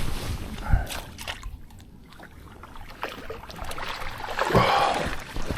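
Water sloshing and splashing around a fishing kayak, with a few short knocks and a louder splash-like rush about four and a half seconds in.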